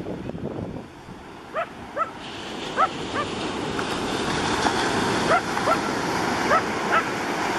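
A dog yapping: about ten short, high, upward-sliding yips, often in pairs, over the steady rush of surf and wind.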